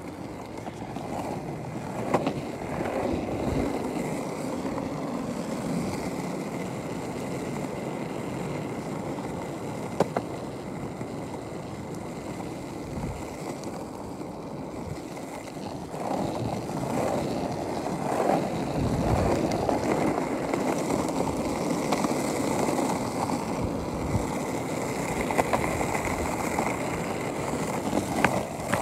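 Plastic penny board wheels rolling steadily over pavement, with a few sharp clicks as they cross cracks or joints.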